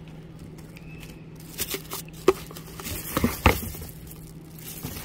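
Plastic packaging and bubble wrap crinkling as a coiled rubber expandable garden hose is handled and lifted in its cardboard box, with a few sharp knocks and rustles, the loudest about three and a half seconds in.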